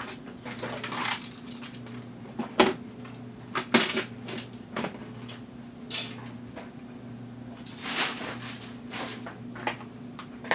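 Irregular clicks and knocks of small objects being handled and set down on a workbench, the sharpest about two and a half, four, six and eight seconds in, over a steady low electrical hum.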